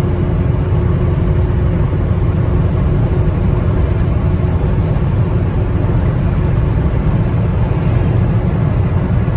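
Cab interior noise of a 1992 Toyota Hiace 4x4 cruising in fifth gear at about 50 to 55 mph: the steady drone of its 2L 2.4-litre four-cylinder diesel mixed with road and tyre noise, even and unchanging.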